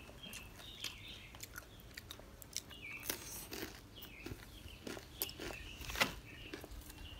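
Close-up chewing of milk-dipped peanut brittle, with faint crunches and mouth clicks scattered through.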